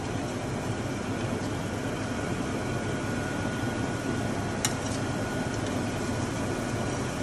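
Chicken thighs sizzling in hot oil in a frying pan, a steady hiss and crackle, with a single sharp click about four and a half seconds in.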